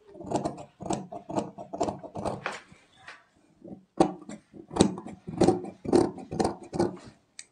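Large tailor's shears snipping through two stacked fabric collar pieces backed with fusing paper, a run of short cuts about two to three a second, with a pause of about a second midway.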